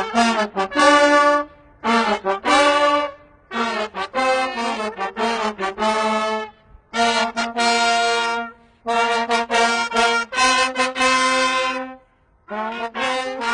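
Brass instruments, trumpets and trombone, playing a tune in phrases of a few seconds each with brief pauses between them.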